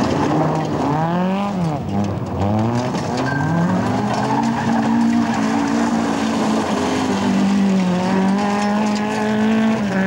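Rally car engine revving hard, its pitch dropping and climbing again with gear changes early on, then held high through a long slide. Tyres scrabble and spray loose gravel under it.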